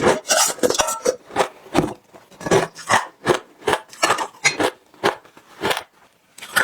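Crunching and chewing of frozen matcha ice, a steady run of crisp crunches two to three a second.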